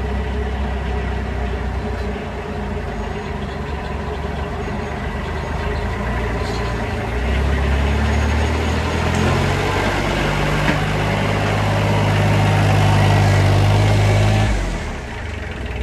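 Kioti compact tractor's diesel engine running as its front loader pushes a pile of sawdust, getting louder as the tractor comes close, then dropping away suddenly near the end.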